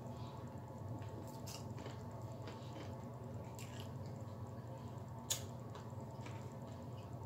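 Close-up eating sounds of fried chicken wings being chewed and picked off the bone: scattered short wet clicks and smacks, one sharper click about five seconds in, over a steady low hum.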